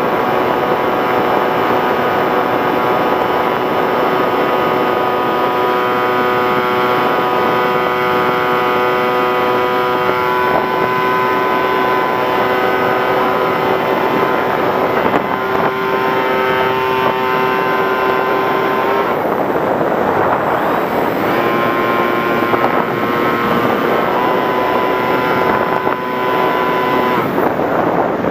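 An RC plane's motor and propeller heard from the onboard camera: a steady whine that steps in pitch a few times. It cuts out about two-thirds of the way through, comes back, and cuts again near the end. Wind rushes over the microphone throughout.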